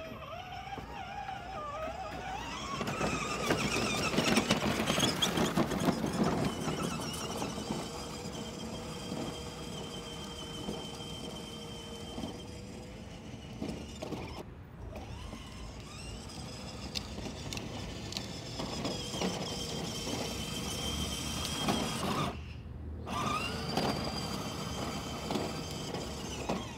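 The two electric drive motors and plastic gearboxes of a 6 V ride-on toy VW bus whining as it drives, the pitch rising as it gets going; loudest a few seconds in. It cuts out briefly twice, about halfway through and again near the end, and each time whines back up.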